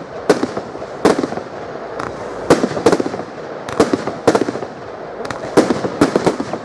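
36-shot silver salute firework cake (Wolff Silver Salute) firing in quick succession. Each shot is a silver glitter mine ending in a salute, giving an irregular string of sharp bangs, more than one a second, over a steady hiss.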